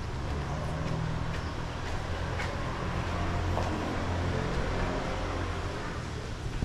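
Low rumble of road traffic that swells in the middle and eases off toward the end, with a few faint clicks over it.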